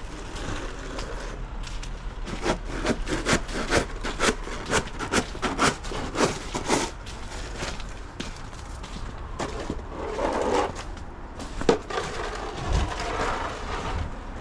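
Footsteps on packed snow, about two to three steps a second, strongest in the first half and fainter later.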